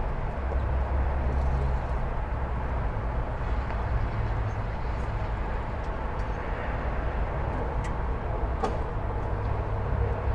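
Steady rumble and hiss of freeway traffic, with a deep low drone, heard from a residential street; a couple of faint short clicks near the end.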